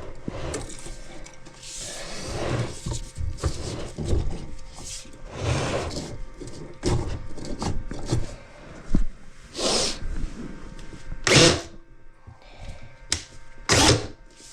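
Plumbing tools and drain-cleaning gear being handled: irregular knocks and clicks with several short scraping, swishing bursts, the loudest a little past halfway and near the end.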